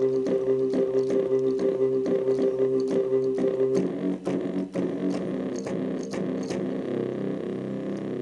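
Korg Kronos synthesizer playing a synth bass preset: a repeating bass line of short notes, about three or four a second, each with a sharp click at its start. About four seconds in, a held higher tone drops out and the pattern changes.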